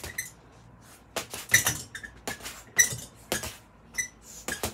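Boxing gloves punching a hanging heavy bag, about eight irregular hits. Each hit is followed by a short metallic clink from the bag's hanging chain and wall bracket.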